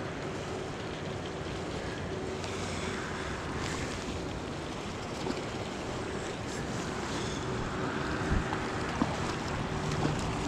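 Steady rushing of a fast river running over rocks, with wind on the microphone and a couple of faint clicks near the end.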